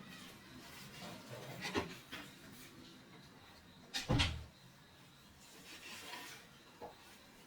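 Objects being handled: one sharp knock about four seconds in, a lighter knock near two seconds, and soft rubbing and rustling between, like a door or drawer shutting or a container being set down.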